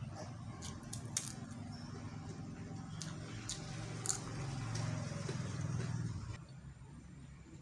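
Close eating sounds: a crispy fried cracker being broken and chewed, with a handful of sharp crunches and clicks. A steady low hum sits beneath and drops away about six seconds in.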